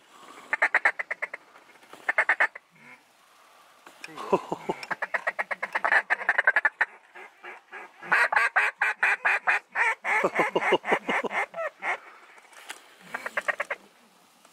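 Mallard duck call blown by a hunter to work circling mallards: several strings of rapid quacks and chatter, the longest and loudest about halfway through.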